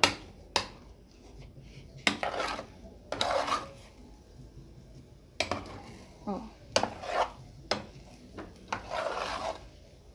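Metal spoon scraping and knocking against a metal pot as thick cornmeal polenta is stirred: two sharp clinks at the start, then a run of short scrapes. The polenta is cooked to the point where it comes away from the bottom of the pot.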